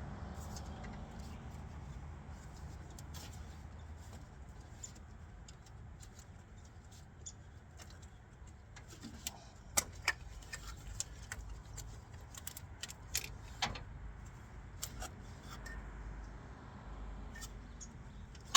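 Scattered light metallic clicks and clinks of hand work on parts and tools, clustered in the middle of the stretch. A low rumble underneath fades away over the first few seconds.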